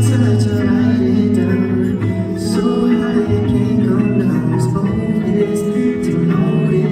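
Live music: a male voice singing over guitar, bass and light percussion.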